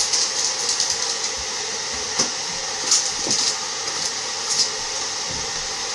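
Knife scraping and clicking against a plate while cutting a microwaved Mini Egg in half, its sugar shell cracking around melted chocolate, in scattered short clicks and scrapes over a steady background hiss.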